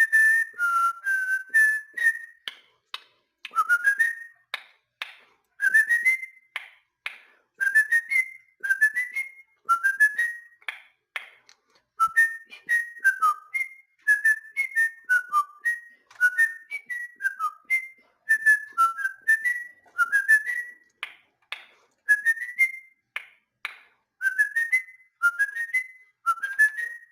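A pet bird whistling its song: phrase after phrase of short, mostly rising whistled notes, one phrase about every two seconds, with sharp, clicky chirps between the notes.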